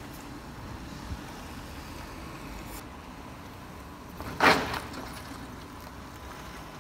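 Low, steady street and traffic noise, then about four and a half seconds in a car's wheels drop over the edge of a shallow trench cut across the road, giving one loud, short clunk from the tyres and suspension.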